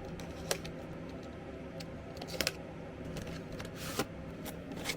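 A package being handled and opened: a few scattered clicks and taps, with a brief rustle of packaging about four seconds in, over a low steady hum.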